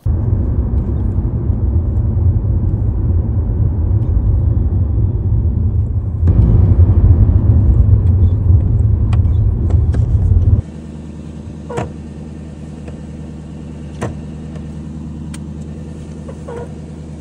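Inside a Lexus LC 500's cabin with the brake pedal being worked: a loud low rumble for about the first ten seconds. Then, in a second recording, the naturally aspirated 5.0-litre V8 idles quietly, with a few short squeaks as the brake is pressed hard and released. The owner was told this squeak comes from an ABS sensor.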